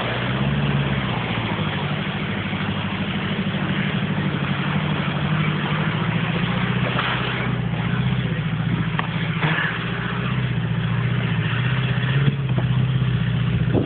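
Vehicle engine idling steadily, getting a little louder near the end.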